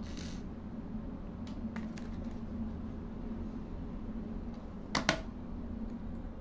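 Small metal clothespin springs clicking lightly as they are handled and fitted together by hand, with a sharper double click about five seconds in, over a steady low hum.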